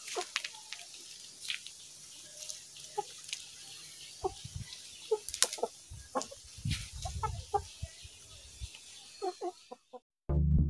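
A small flock of chickens clucking in short, soft calls while pecking at food on the ground, with scattered sharp taps of beaks on dirt and stone.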